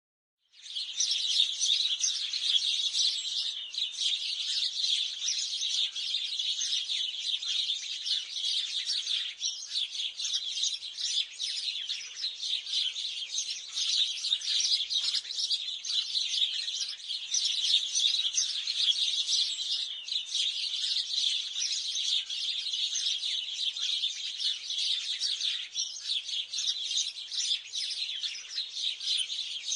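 A flock of sparrows chirping together, many overlapping high chirps with no break.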